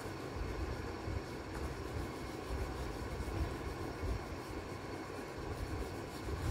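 Yellow crayon rubbing back and forth on drawing paper as the sky is coloured in, a continuous scratchy shading with an irregular low rumble.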